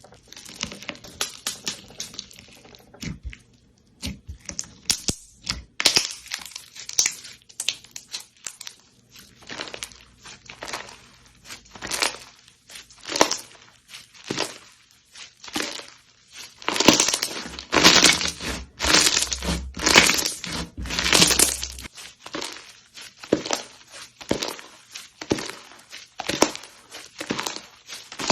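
Hands pressing, squeezing and poking slime, giving irregular crackling and popping. The crackles come thicker and louder in the second half.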